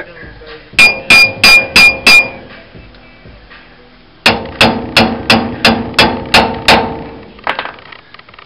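Hammer blows on the steel axle-shaft flange at the hub of a Dana 60 full-floating axle, knocking loose stuck retainers. Five ringing blows about a second in, then a faster run of about nine blows a couple of seconds later, and a few lighter taps near the end.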